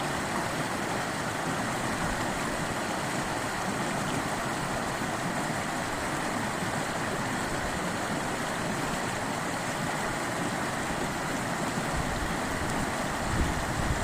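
River water rushing and flowing in a steady, even stream, with some low rumbles near the end.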